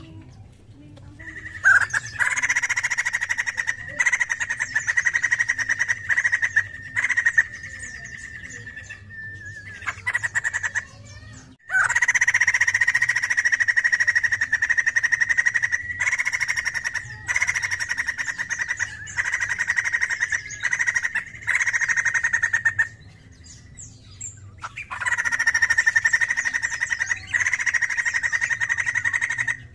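White-crested laughingthrush calling in three long bouts of very fast, rapidly repeated notes, each lasting several seconds, with short pauses between them.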